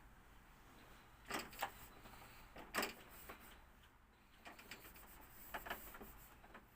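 Scattered light knocks and clicks of small household items being handled and put away, in short clusters, the sharpest about three seconds in.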